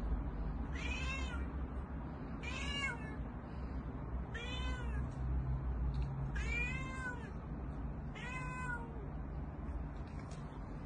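A domestic cat meowing five times, about every two seconds, each meow rising and then falling in pitch, over a steady low background hum.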